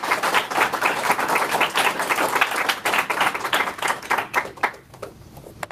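A small audience applauding, the clapping dying away about five seconds in.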